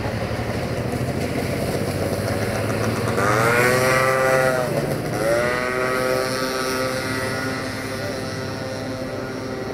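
Heavy diesel truck idling with a steady low hum. About three seconds in, a loud pitched whine rises and falls. A second whine follows at once, drops and then holds steady for a couple of seconds before fading.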